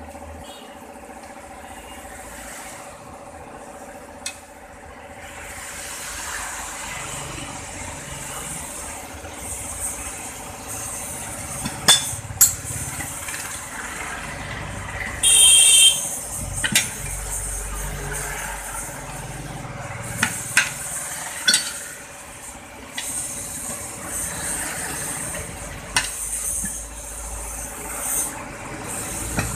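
Iron tyre levers clinking and scraping against a steel wheel rim as a tyre bead is pried over it by hand: scattered sharp metallic clinks, with one longer ringing clank about halfway through, over a steady background hum.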